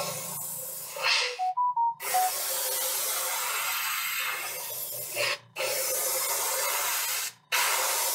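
Airbrush spraying paint onto a crankbait in long hissing passes, the trigger let off three times for short breaks. A few short whistle-like notes sound in the first break.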